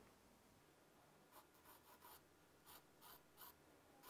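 Faint pencil strokes scratching on drawing paper as straight lines are drawn: a handful of short strokes, beginning about a second and a half in.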